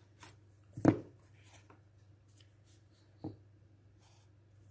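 Two knocks of drawing tools handled on a wooden desk as an eraser is put down and a pencil picked up: a sharp one about a second in and a lighter one a little past three seconds, over a faint low hum.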